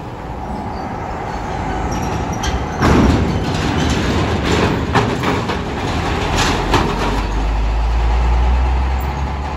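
Trucks driving off a ferry onto a steel-grated ramp: engines running, with clanks and rattles as the wheels roll over the steel plates. A deep engine rumble swells near the end as one truck passes close.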